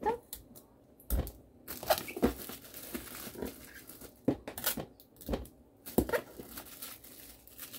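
Adhesive packing tape being pulled and torn off the roll and pressed onto a small clear plastic bag, with plastic crinkling: a series of short, irregular rips and rustles.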